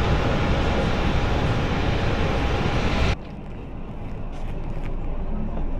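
Steady loud rushing noise of aircraft on the airport apron, cutting off suddenly about three seconds in to a quieter low rumble.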